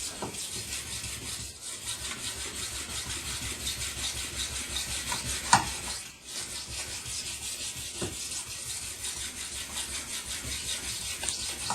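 Chipped steel knife blade being ground by hand on a 1000-grit Japanese water stone: steady, rapid back-and-forth strokes of steel rubbing across the stone to grind out the chips. A single sharper click comes about five and a half seconds in.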